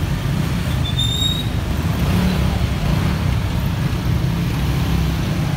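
Dense street traffic of motor scooters and cars running through an intersection: a steady low rumble of engines, with a short high-pitched chirp about a second in.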